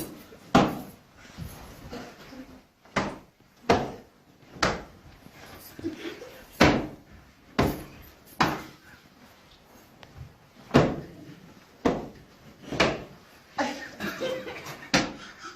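A series of sharp thumps, about a dozen, coming irregularly roughly a second apart, each dying away quickly.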